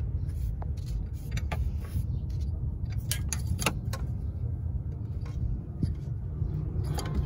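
Irregular metallic clicks and clinks of hand tools, a wrench and a ratchet with an extension, against metal as the bolts of a delta pressure sensor on a DD13 diesel engine are tightened, over a steady low rumble.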